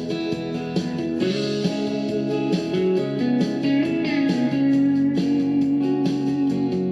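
Guitar music: a slow melodic line of held, changing notes.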